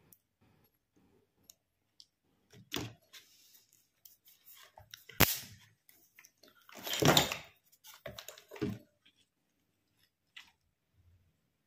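Scattered light clicks and rustles of hands handling metal tweezers and a small LED bulb's aluminium housing and driver board on a wooden board. There is one sharp click about five seconds in and a longer rustle about seven seconds in.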